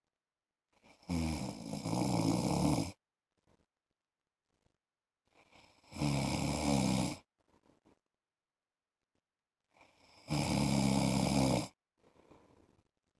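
A man snoring in his sleep: three long snores of a second or two each, about four to five seconds apart, with faint breathing between them.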